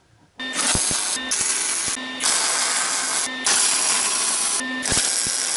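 Stick-welding arc crackling and sizzling steadily, starting about half a second in, with a few brief breaks in the arc where a low hum shows through.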